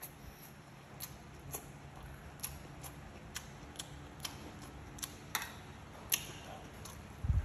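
Close-up chewing of crisp stir-fried water spinach stems: sharp, irregular crunching clicks about two a second over a low steady hum, with a louder burst right at the end.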